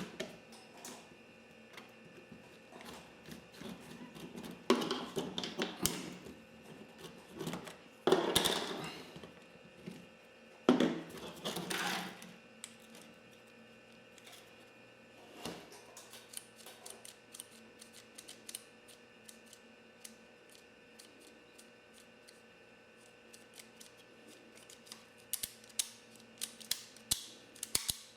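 Small clicks, taps and clatters of hands working on a plastic cassette boombox being taken apart. Three louder scraping sounds of about a second each come in the first half, and a run of quick clicks comes near the end.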